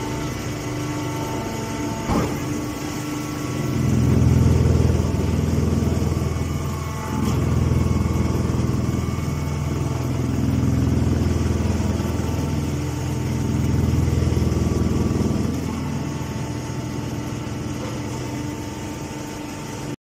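Hydraulic straw bagging baler running with a steady machine hum. The hum deepens and grows louder in several swells of a few seconds each, and there is a single knock about two seconds in.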